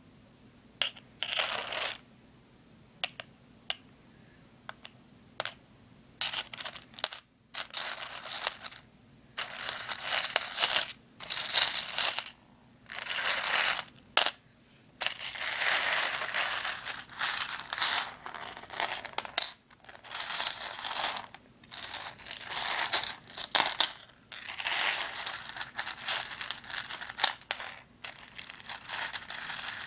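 Seashells handled and rubbed together. A few sharp clicks as they tap come first, then scraping and rattling in bursts that grow longer and run almost without pause in the second half.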